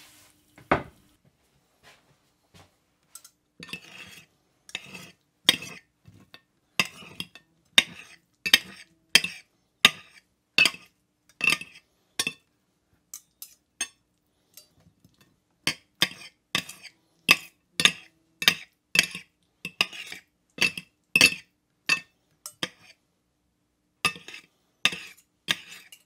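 Knife and fork scraping and clinking against a plate while cutting fried eggs, in short repeated strokes about every half second, with a short pause about halfway through.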